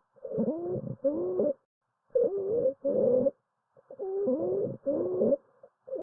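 Wheezing lung sounds heard through a stethoscope: musical tones that glide in pitch, several at once, in pairs of half-second sounds on breathing in and out, about two seconds per breath. Wheezing is the sign of narrowed airways, as in bronchial asthma.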